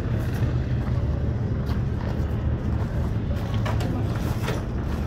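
1924 Moto Guzzi C4V 500's four-valve horizontal single-cylinder engine running steadily, with a few short sharp ticks over it.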